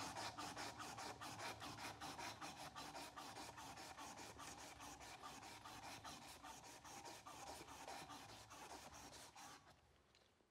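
Sandpaper rubbed back and forth by hand over a wooden knife handle, an even scratching at about four strokes a second that stops near the end.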